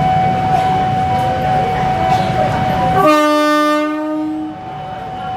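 Small electric horn of a Tokyo Metro 05 series train sounds once, about three seconds in, as a single buzzy note lasting about a second and a half. Before it there is train rumble with a steady high whine.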